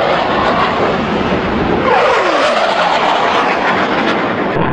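Fighter jet making a low, fast pass: a loud, steady jet roar, with a tone that sweeps sharply down in pitch about two seconds in as the jet goes by.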